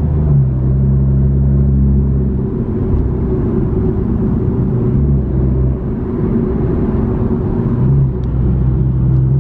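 BMW M340i's turbocharged 3.0-litre inline-six with a straight-piped catback (muffler deleted), heard inside the cabin while cruising low in the rev range: a loud, deep, steady exhaust rumble like a semi, its pitch shifting slightly a few times.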